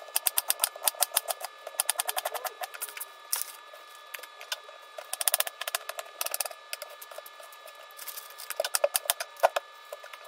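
Kitchen knife chopping red cabbage and red onion on a wooden cutting board: quick runs of sharp knife strokes knocking on the board, with short pauses between the runs.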